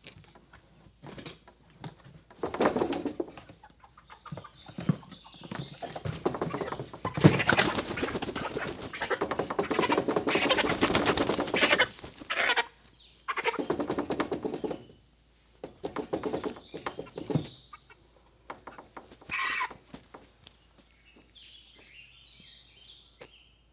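Live Cornish Cross meat chicken, held upside down by its feet, flapping its wings in loud bursts, the longest lasting about five seconds, then a few brief calls near the end.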